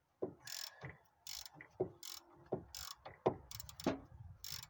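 A ratcheting wrench being worked on a front stabilizer link nut, its pawl rasping on each stroke, about six strokes under a second apart, with sharp metallic clinks in between.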